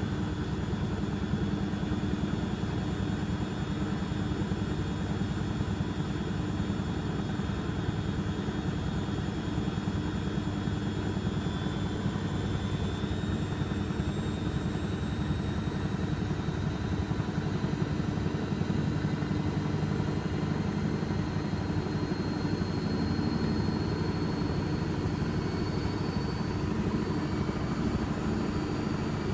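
Beko washing machine spinning its drum, a steady rumble with a motor whine that climbs slowly in pitch as the drum speeds up.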